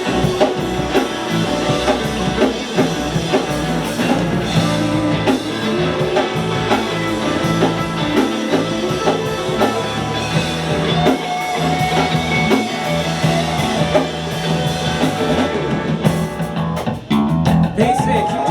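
Live rock band playing, with guitar to the fore after the guitarist's introduction; the music drops briefly near the end before a held note comes in.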